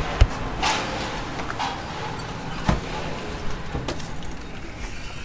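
Steady outdoor background noise with a few scattered clicks and knocks, one of them as a glass shop door is pushed open and walked through.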